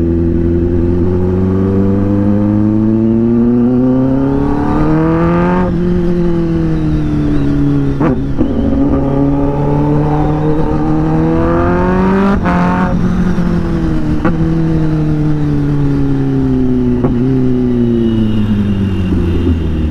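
Kawasaki ZX-10R inline-four engine through an SC-Project aftermarket exhaust, heard from the rider's seat. The revs climb twice under throttle, each time cutting off sharply and falling away as the throttle closes, then sink steadily near the end, with a few short cracks on the way down.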